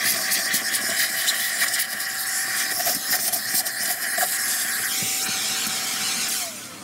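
A vacuum cleaner hose sucks dirt out of a cyclone's perforated metal shroud: a steady rushing hiss with a high motor tone and scattered clicks. Near the end the vacuum shuts off, and its tone falls as the motor winds down.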